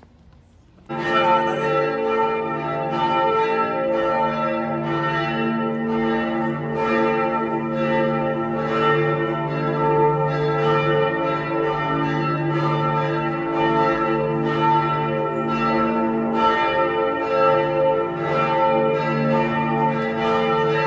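Church bells pealing: several bells struck over and over, their tones ringing on and overlapping, starting suddenly about a second in.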